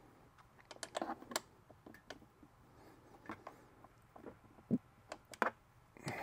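Irregular small clicks and taps of a screwdriver working a bolt on a scooter kickstand bracket as it is tightened by hand, with a couple of sharper clicks near the end.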